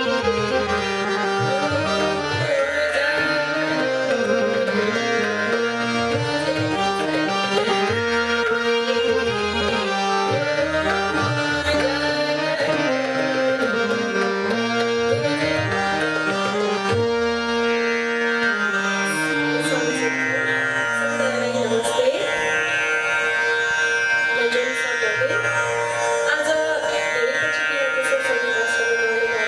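Hindustani classical music in Raga Rageshree: a harmonium melody and tabla over a steady tanpura drone. The melodic line turns more ornamented about two-thirds of the way through.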